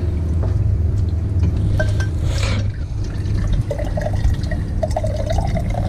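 Water from a watermaker's outlet hose running into a drinking glass and filling it, over a steady low machine hum.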